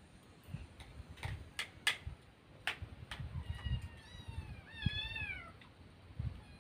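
A kitten meowing several times in short, arching calls, the last one the loudest and longest. Before that, a few light clicks.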